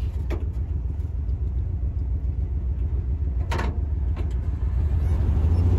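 Old Volkswagen's engine running, heard as a steady low rumble from inside the cabin, with a sharp clack about three and a half seconds in.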